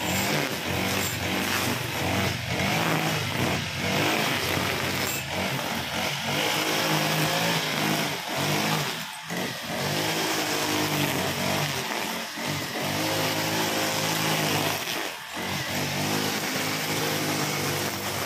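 Brush cutter powered by a Honda GX35 four-stroke engine, running at high revs while cutting grass, its pitch rising and falling as the head sweeps through the growth, with a few brief dips in speed.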